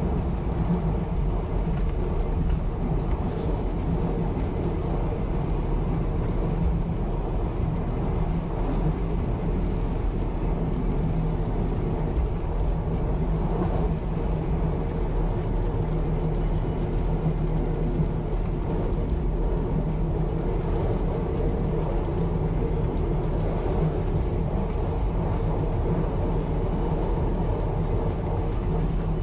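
1920s CPH railmotor running steadily along the line: a constant engine drone with running noise from the track.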